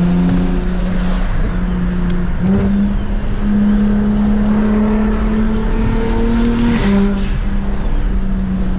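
Single-turbo N54 straight-six of a BMW 335is running steadily under way, its note stepping in pitch a couple of times. A thin high whine climbs over a few seconds and then drops away about seven seconds in.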